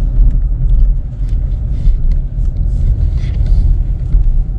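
Steady low rumble of a car driving along a road, heard from inside the cabin, with a few faint ticks.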